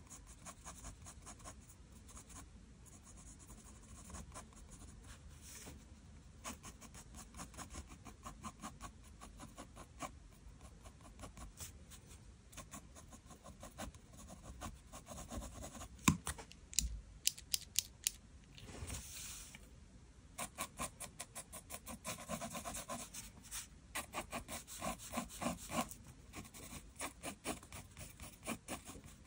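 Mechanical pencil sketching on paper: quick, short scratchy strokes, louder in the second half.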